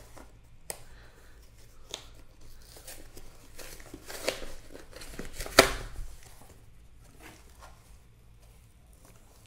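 Cardboard box of coin rolls being torn open by hand: cardboard and tape ripping and flaps crinkling in scattered scrapes and clicks, with one sharp, loud rip about five and a half seconds in.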